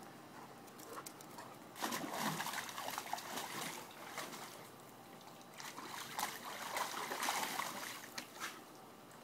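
A Rhodesian Ridgeback splashing and sloshing water in a plastic kiddie pool, in two bouts: about two seconds in, and again from about halfway to near the end.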